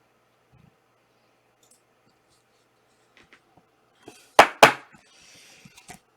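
Trading cards being handled on a table: a few faint clicks, then two sharp snapping taps in quick succession about four and a half seconds in, followed by a brief sliding rustle.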